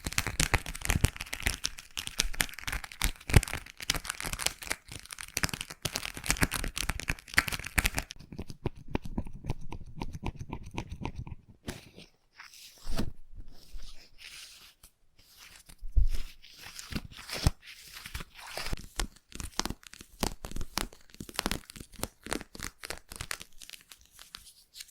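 Slime squished and pressed close to the microphone for ear-cleaning ASMR: sticky crackling and popping clicks, very dense for about the first eight seconds, then thinner with short pauses.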